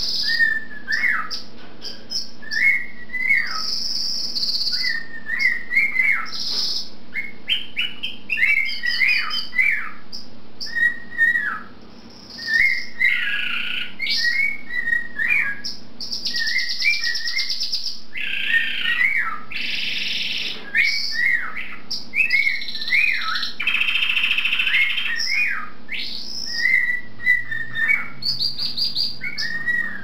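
A cockatiel and a canary whistling together in a duet. The cockatiel repeats short whistle phrases that rise and fall, while the canary breaks in with rapid trilled runs, several of them long and loud.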